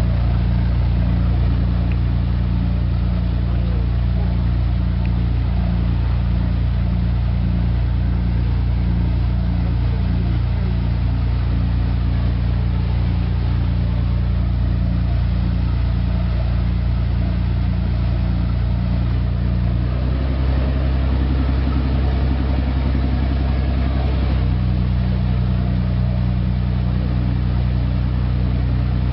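Engine of a small passenger ferry boat running steadily with a low drone. About twenty seconds in, the drone's tone changes, then settles again a few seconds later.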